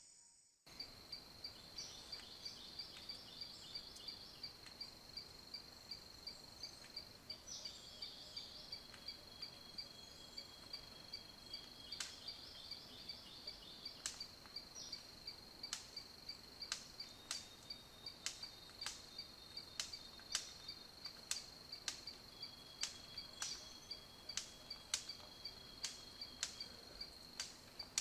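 A cricket trilling steadily in a fast, even pulse, with sharp clicks that come more and more often in the second half.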